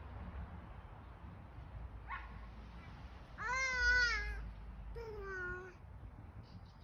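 Wordless high-pitched cries: a short one about two seconds in, a loud drawn-out wavering one near the middle, and a weaker one that falls in pitch, over a low rumble.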